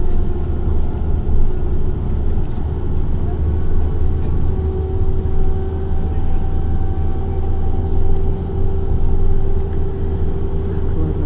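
Bus travelling on a highway, heard from inside the cabin: a steady low rumble of engine and road noise, with a fainter engine hum that comes through more clearly about halfway through.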